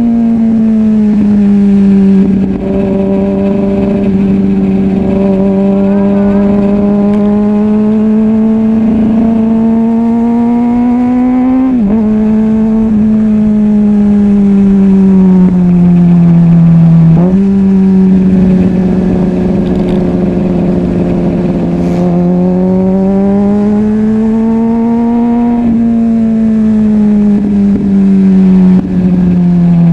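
2005 Kawasaki ZX-6R 636's inline-four engine under way, its pitch rising and falling gently with the throttle. It makes two quick gear changes, near the middle and a little after, and the revs fall away near the end.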